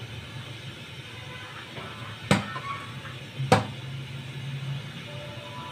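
Two sharp knocks of a serving ladle against the soup pot or bowl, about a second apart, while broth is being served, over a low steady hum.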